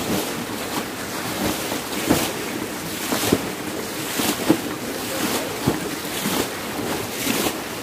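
Buckets of water scooped from a shallow stream pool and flung out onto rocks, splashing roughly once a second, while the pool is bailed out to get at the fish. Running stream water rushes steadily underneath.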